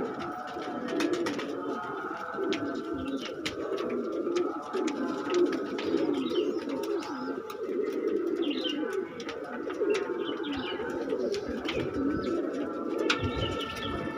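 A flock of domestic pigeons cooing continuously, many low coos overlapping, with scattered sharp clicks.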